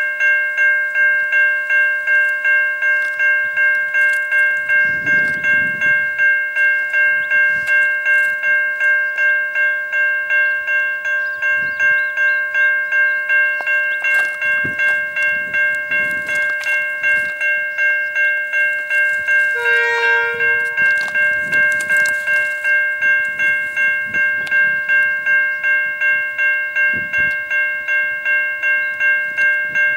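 Level crossing warning bell ringing in steady, evenly repeated strikes while the crossing is active. About two-thirds of the way through, a short horn blast sounds, likely from an approaching train.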